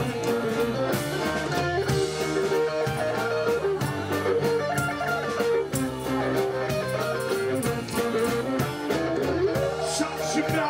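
A live band playing: electric guitar, accordion, upright bass and drum kit, with a steady drum beat under held notes.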